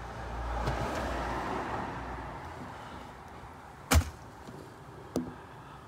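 Aerosol can of WD-40 Specialist silicone lubricant spraying into the sunroof rails, a hiss for about two and a half seconds that fades off. A sharp knock follows about four seconds in, then a lighter click.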